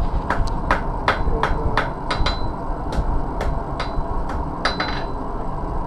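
Blacksmith's hand hammer striking hot iron on an anvil, about fifteen blows at an uneven two to three per second, some with a short metallic ring, stopping about five seconds in. A steady low rumble of forge background noise runs underneath.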